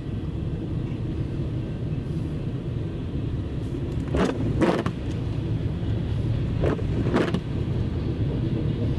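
Car driving at speed, heard from inside the cabin as a steady low road rumble. There are two pairs of short knocks, about four and seven seconds in.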